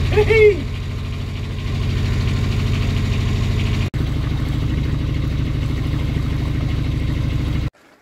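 Hired day boat's engine running steadily at low cruising speed, with a brief voice in the first half second. The engine sound breaks briefly about four seconds in and cuts off abruptly just before the end.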